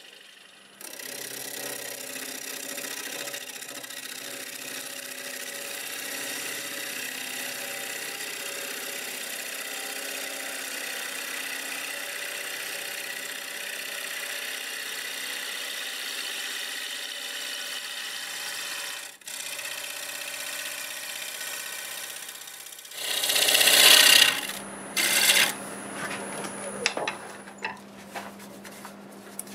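Bowl gouge cutting a spinning mimosa blank on a wood lathe: a steady hissing cut that breaks off briefly about two-thirds of the way through. It then gives a much louder, harsher cut and a few short ones near the end, with the lathe motor humming underneath.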